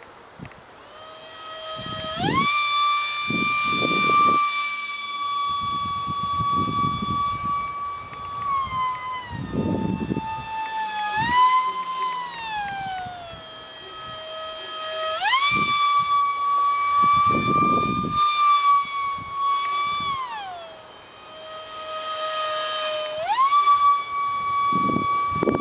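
Electric ducted fan of a micro RC jet (UMX F-16 EDF unit) whining as it flies, its pitch jumping up and gliding back down between a lower and a higher level several times as the throttle is opened and closed.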